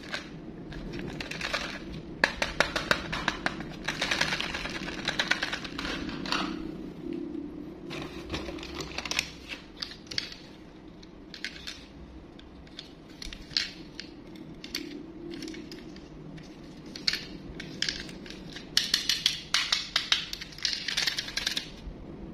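Plastic toys clattering and rattling against each other as they are handled and moved in a cardboard box, in bursts of quick clicks and knocks, with a low steady hum underneath.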